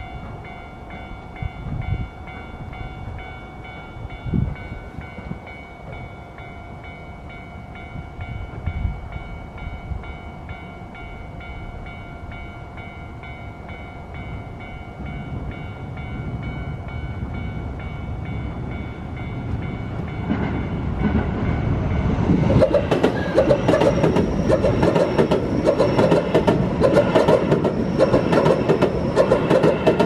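Japanese level-crossing alarm ringing steadily with the barriers down. From about 20 seconds in, an approaching Keio Line electric commuter train rises into a loud passing rumble with rapid wheel clatter over the rail joints, heard over the alarm.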